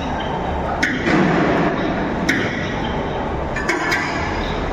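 Hand tools and steel pump parts clinking on a metal workbench: a few sharp metallic clinks about a second and a half apart, over the steady background noise of a large workshop.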